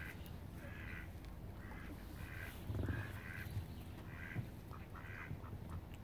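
Mallard ducks quacking in a repeated, uneven series of short calls, over a low rumble that is loudest about three seconds in.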